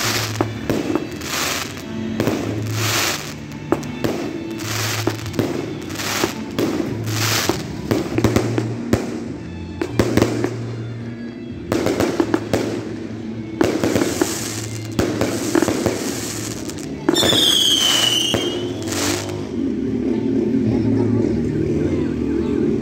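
Aerial fireworks going off in a rapid series of cracks and bangs over music, with a falling whistle about 17 seconds in.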